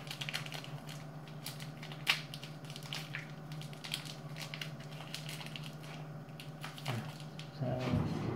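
Plastic wrapper crinkling and crackling as it is peeled off a slice of processed cheese, in quick irregular crackles, over a steady low hum.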